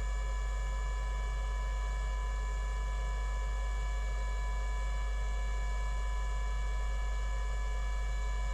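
Steady electrical mains hum with a thin, high whine of several constant tones over it, unchanging throughout.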